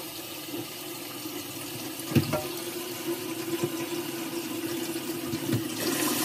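Tap running steadily into a stainless steel sink as it fills with clean rinse water, the stream splashing onto a fencing mask in the basin. A single sharp knock about two seconds in, with a few fainter knocks later, and the water grows a little louder near the end.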